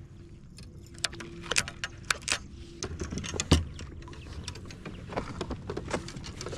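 Clicks, knocks and light rattles of fishing gear being handled in a kayak, with one heavier thump on the hull about three and a half seconds in.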